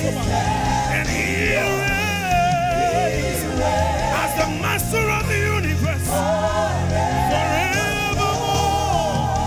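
Gospel praise-and-worship song performed live: lead and backing singers on microphones sing with vibrato over steady instrumental accompaniment.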